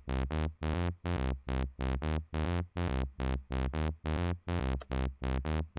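Wobble ('wub wub') bass from an FL Studio Harmor synth patch playing a looped bass line, its filter swept by an LFO so the sound pulses about three and a half times a second while stepping between a few low notes.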